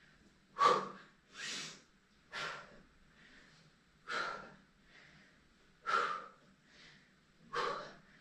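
Heavy breathing from exertion during a plank exercise: six sharp, audible breaths, about one every one to two seconds.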